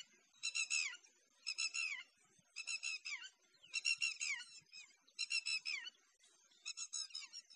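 A bird calling over and over, about once a second, each call a quick run of high chirps ending in a falling note.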